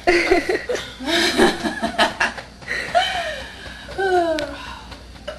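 Young women laughing and chuckling in bursts, with a falling vocal glide about four seconds in.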